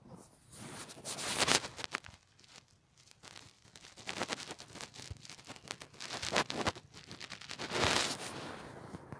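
Bedding fabric rustling and scraping close to the phone's microphone, in irregular bursts that are loudest about a second and a half in and again near the end.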